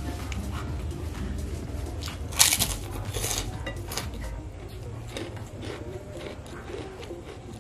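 Eating sounds: chewing and crunching a crisp kerupuk cracker, with one loud crunch about two and a half seconds in and smaller ones just after. Then lighter clicks as fingers pick through rice on a plate.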